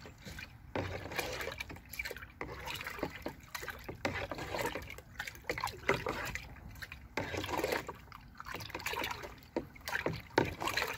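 Watery liquid fertilizer sloshing and swirling in a plastic bucket as it is stirred with a stick, in uneven strokes.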